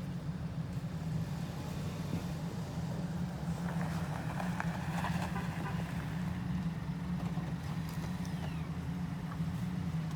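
A car engine running steadily, with a low, even hum throughout and some brief clicking and rustling noise in the middle.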